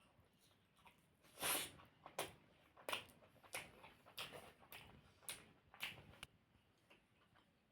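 A person chewing and biting mouthfuls of puri with potato curry, close to the microphone: a series of short chewing sounds about once or twice a second, the loudest about a second and a half in.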